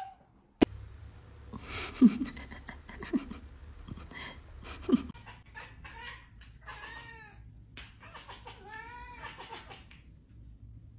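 Domestic cat chattering at something outside a window: two bouts of quick, repeated chirping calls, with a few short lower sounds and clicks before them.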